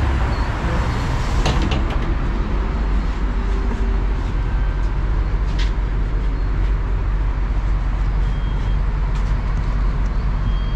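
MAZ-103 city bus running, a steady low rumble of engine and road noise heard inside the passenger cabin, with a few sharp clicks and knocks about a second and a half in.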